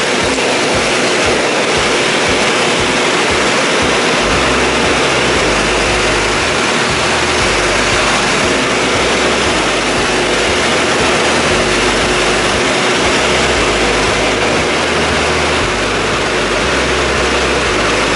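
Small skydiving jump plane's piston engine and propeller running steadily, heard from inside the cabin as a loud continuous drone with a steady hum through it.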